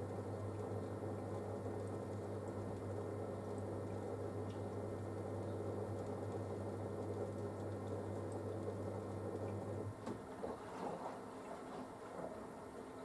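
Panasonic washing machine on its wool cycle with water running through it under a steady mains hum. The hum cuts off suddenly about ten seconds in, leaving faint trickling and sloshing.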